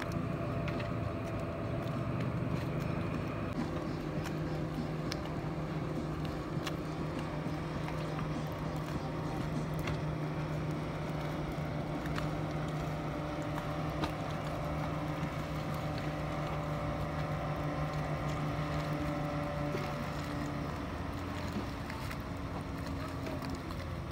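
Speedboat's outboard engine running steadily at speed, a constant engine hum that drops away about twenty seconds in.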